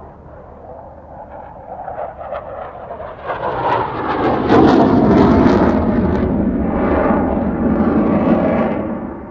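Saab JAS 39 Gripen fighter's single Volvo RM12 jet engine in afterburner, building from a distant rumble to loud jet noise with sharp crackling about four seconds in, then easing off near the end.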